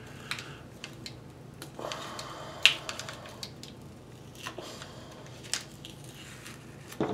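Hands handling and scraping at the cardboard casing of an aerial firework shell: scattered small clicks and rustles, a scraping stretch with a sharp click about a third of the way in, and a louder knock at the very end.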